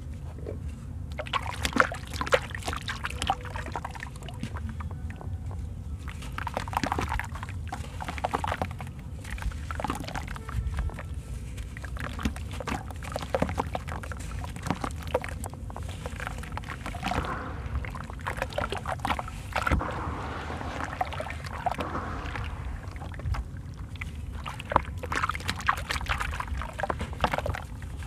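Dry sand-and-cement chunks crumbled by hand into a basin of water: irregular gritty crunches as the lumps break, with grains and pieces pouring and splashing into the water. A steady low rumble sits underneath.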